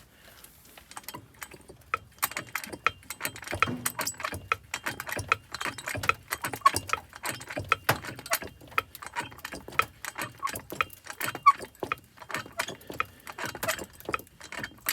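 Rapid, irregular clicking and ticking as a porta power hydraulic ram is pumped to push a collision-bent MCI bus door frame back out, the metal giving under the load.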